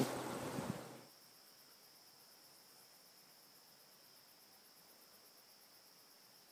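Crickets chirring steadily, a faint high, fast-pulsing trill. A brief loud rush of noise fills the first second and fades out.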